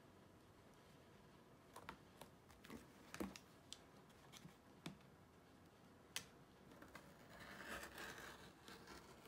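Quiet, scattered light taps and clicks of an acrylic ruler and a metal hem gauge being handled on a cutting mat. Near the end comes a soft, longer scrape: a rotary cutter drawn along the ruler edge, trimming through the project.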